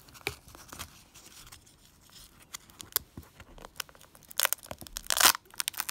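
Foil wrapper of a plastic surprise egg being picked at and peeled off by fingers, crinkling and tearing in short crackles. The wrapper is stuck hard. The crackles are sparse at first and come thicker and louder in the last two seconds.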